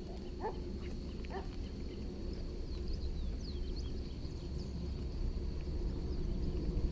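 Open-air ambience over the water: a steady low rumble with a faint steady high tone, and a few short chirping animal calls, two falling ones early and a quick cluster of high chirps in the middle.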